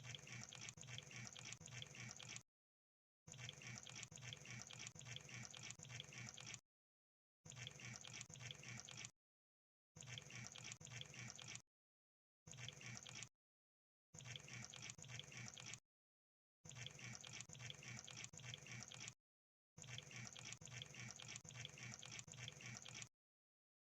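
Crab sound effect: rapid crackling clicks in about eight bursts of one to three seconds each, every one starting and stopping abruptly with dead silence between them.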